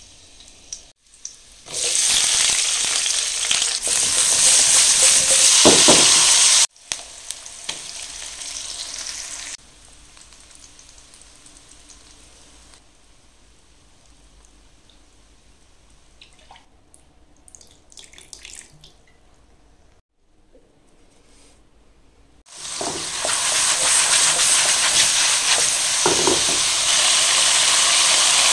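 Pork liver and green pepper stir-frying in hot oil in a wok: loud sizzling, with stirring. The sizzle drops low for a long stretch in the middle, then comes back loud about two-thirds of the way in.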